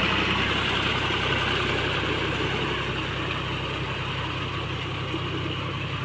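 A farm tractor's diesel engine running steadily while it pulls a rotavator through wet mud, growing slightly fainter as it moves away.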